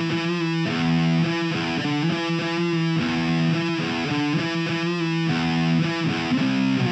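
Background rock music led by distorted electric guitar, with sustained chords changing in a steady rhythm.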